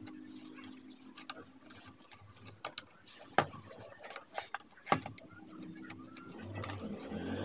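Scattered small metallic clicks and clinks of a spanner working the terminal nuts and washers on an electric water pump motor's connection plate as they are tightened.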